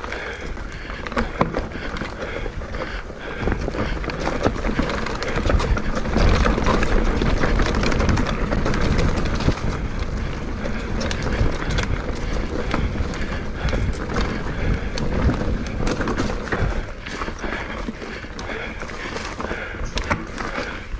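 Mountain bike riding fast over rough ground: a steady clatter of tyres, chain and frame rattling over bumps, with wind buffeting the camera microphone.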